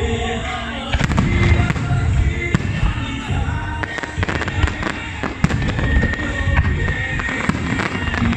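Fireworks display: aerial shells bursting in a dense, irregular run of bangs, with music playing underneath.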